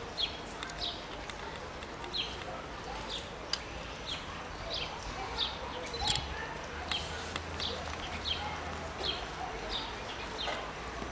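A small bird calling over and over: short, high notes that drop in pitch, about two a second.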